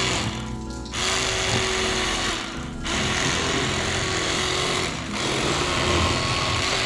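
A small electric motor buzzing in short runs, cutting out briefly about a second in and again near three seconds in: typical of an electric fillet knife at work on fish. Faint background music runs underneath.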